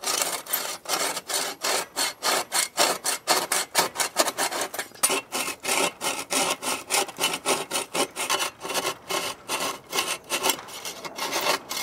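Agawa Canyon Boreal 21 folding bow saw cutting a notch into a treated wood post, quick, steady back-and-forth strokes of the toothed blade rasping through the wood.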